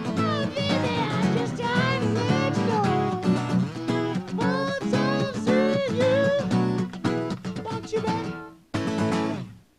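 Fast, busy acoustic guitar playing with many bent, sliding notes. It ends on a final struck chord near the end that rings and fades away.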